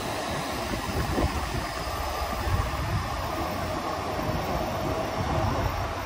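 Electric commuter trains running past on the many parallel tracks: a steady rumble and rush of wheels and cars, with wind buffeting the microphone. A faint steady whine joins about four seconds in.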